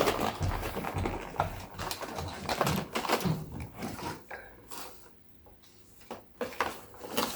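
Scattered clicks and knocks of toys being handled, going near quiet for about a second around five seconds in.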